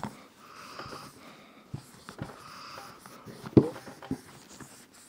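Brush strokes of scrubbing on an AR-15 bolt carrier, coming in soft swells of hiss, with light knocks of the metal parts being handled; the sharpest knock falls about three and a half seconds in.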